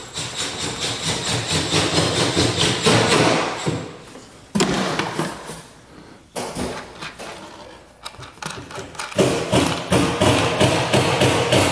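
A screw is driven into the ceiling by hand to mount a pipe clamp for the Prevost air line, with runs of rapid clicking. The runs pause briefly about four and a half seconds in and again about eight seconds in.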